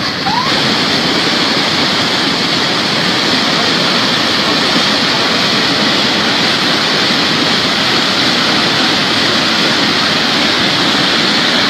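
A muddy flash-flood torrent rushing down a riverbed: a loud, steady rush of churning water.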